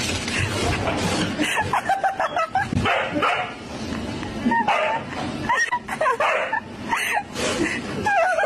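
A dog yipping and whimpering in short, high, repeated cries.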